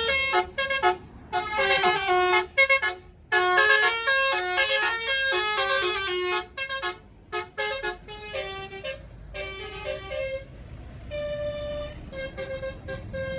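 Tour bus's basuri telolet horn playing a quick melody of stepping notes with short breaks between phrases, growing fainter after about eight seconds.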